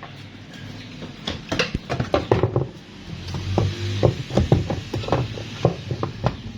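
Washing machine's plastic pulsator being fitted back into the wash tub by hand: a run of irregular plastic clicks and knocks.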